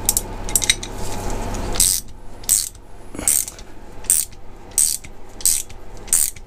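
Hand-held brake pipe flaring tool being tightened down on a copper brake pipe to form a double flare. A soft rasp of the turning screw is followed by regular short clicks, about one every 0.7 seconds.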